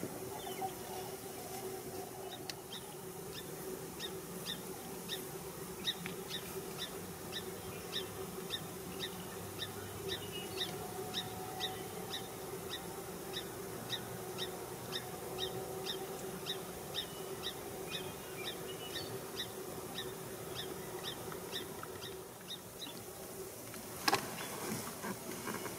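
A small songbird calling over and over, short high chip notes about twice a second, over a steady low hum. A single sharp click near the end.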